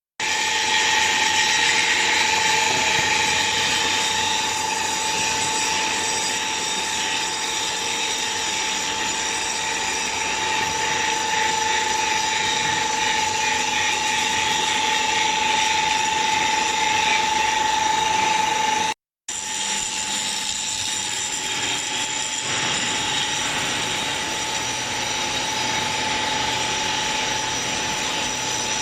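Concrete block-making machine running: a steady mechanical rattle with a constant high whine. It drops out briefly about two-thirds of the way through, then carries on.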